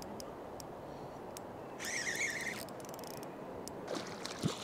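Spinning reel whirring for under a second about two seconds in, with a hooked fish bending the rod, among scattered light clicks. A single thump near the end, over steady wind and river noise.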